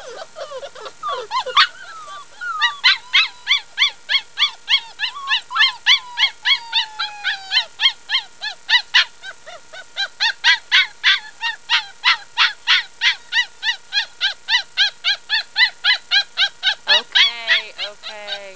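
Month-old Doberman puppies yapping in a rapid string of short high-pitched yips, about three a second, broken by a few drawn-out falling whines.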